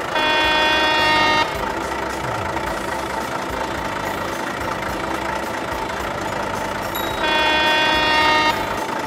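A truck horn honks twice, each blast a little over a second long, the second about six seconds after the first, with a steady low vehicle-running noise between them.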